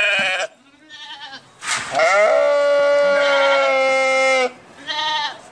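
Sheep bleating: a bleat trails off at the start, a few faint calls follow, then one long, steady bleat of about two and a half seconds, and a short bleat near the end.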